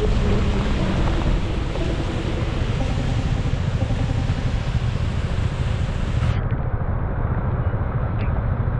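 Car being driven: a steady low rumble of engine and road noise, with a hiss above it that thins out about six seconds in.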